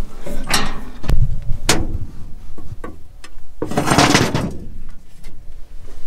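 Several sharp knocks and clicks, the strongest about a second and a second and a half in, with a louder burst of noise lasting about a second around four seconds in.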